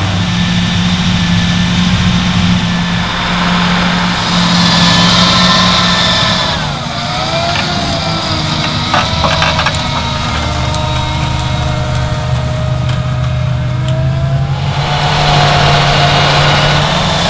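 John Deere 8400R tractor's diesel engine running steadily while it pulls a subsoiler through the ground. Its pitch dips and recovers about seven seconds in, and a few sharp clicks come soon after.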